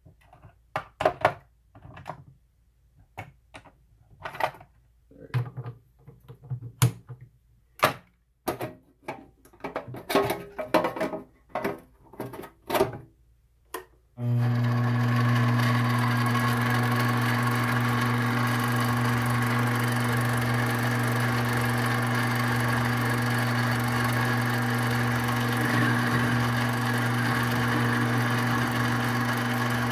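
Scattered sharp metallic clicks and knocks with quiet between them. About halfway through, a Chinese 7x14 mini lathe comes in running: a loud steady hum of its motor and gears that holds on without change.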